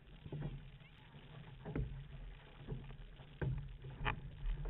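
Outrigger canoe paddles dipping and pulling through the water in splashing strokes, roughly once a second and not evenly spaced, over the steady rush and slap of water along the hull and outrigger float.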